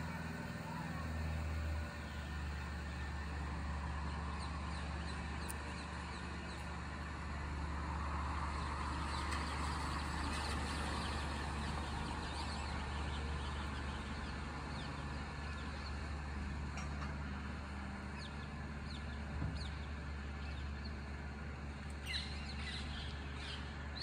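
Suburban background: a steady low hum of distant traffic, with many short bird chirps scattered throughout and two brief sharp sounds near the end.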